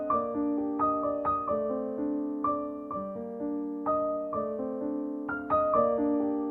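Background music: a gentle piano melody of soft, slowly struck notes that ring and fade.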